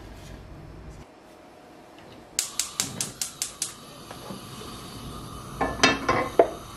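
Gas hob's spark igniter clicking rapidly, about seven clicks, until the burner catches and a soft steady hiss of the flame follows. Then a few loud knocks as a Scoville Neverstick shallow casserole pan is set down on the hob's metal pan supports.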